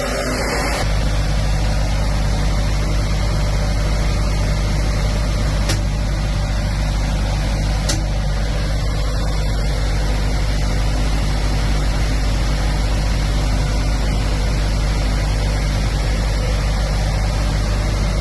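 Lister Petter diesel engine of a 32 kVA standby generator running steadily with an even low hum. It has started automatically on a simulated loss of mains power.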